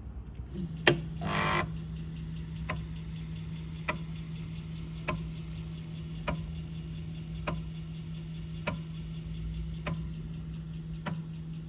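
IBM/Alps 360K 5.25-inch floppy disk drive reading a disk. Its spindle motor starts with a steady hum, and the head engages with a loud click. The stepper motor then gives a short "brrrr" as it seeks back to track 0. After that the stepper ticks once about every second and a quarter, each tick the head stepping inward to the next track.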